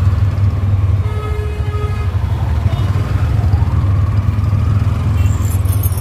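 Steady low engine hum of a CNG auto-rickshaw crawling in jammed street traffic, with a vehicle horn sounding for about a second near the start.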